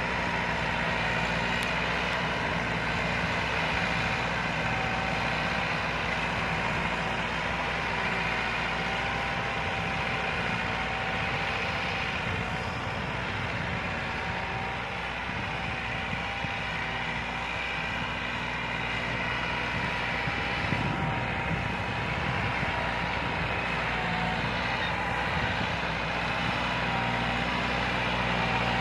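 Massey Ferguson 375 tractor's four-cylinder Perkins diesel engine running steadily under load while pulling a 13-tine cultivator through the soil, with a steady whine over it. It grows a little fainter in the middle and louder again near the end as the tractor comes back toward the listener.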